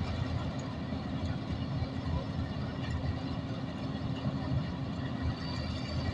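Preet 987 4x4 combine harvester's diesel engine running steadily.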